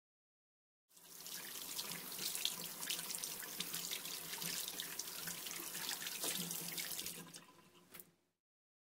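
Running water splashing steadily. It cuts in abruptly about a second in and fades out near the end, with a short click just before it stops.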